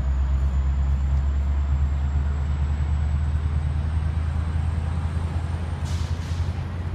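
Steady low rumbling drone of a diesel-hauled West Coast Express commuter train standing at the station platform, with a faint high whine slowly rising in pitch and brief higher noises near the end.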